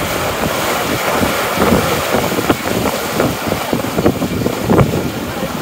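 Wind buffeting the microphone aboard a sailing yacht under way, in uneven gusts.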